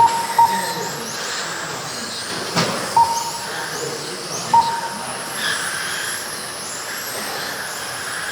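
Radio-controlled race cars running on the track, their motors making a high whine that rises and falls as they speed up and slow down. Short single-pitch beeps sound at the start, half a second later, about three seconds in and about four and a half seconds in, typical of a lap-counting system registering cars crossing the line, with one sharp click about two and a half seconds in.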